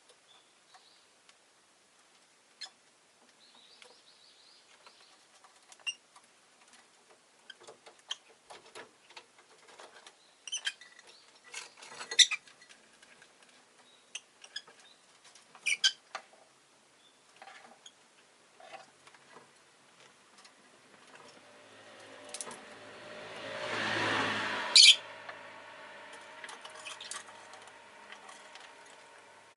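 Rosy-faced lovebird giving scattered short chirps and clicks, a few of them sharp and loud. About two-thirds of the way through, the noise of a passing vehicle swells and fades, with a loud chirp near its peak.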